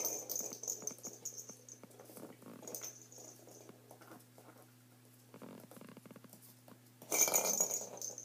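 Small puppy playing on a hardwood floor: its claws tap and scrabble and its toys knock about in a run of light patters, louder near the end, over a faint steady hum.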